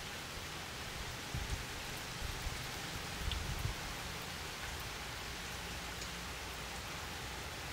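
Steady rain falling on a wet wooden deck, an even hiss of drops, with a few brief low rumbles in the first four seconds.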